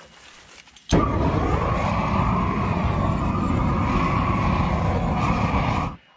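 Lincoln Electric Inferno propane roofing torch burning with a loud, steady roar of flame. It starts abruptly about a second in and stops suddenly near the end.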